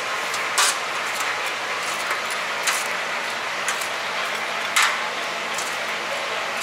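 Metal tongs clinking against a perforated stainless-steel tray and plate as fried duck pieces are moved: three sharp clinks about two seconds apart, with fainter taps between, over a steady kitchen hum.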